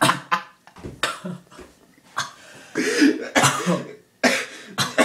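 A person coughing and spluttering in repeated short bursts while trying to swallow a thick, lumpy mixture of flour and Coke.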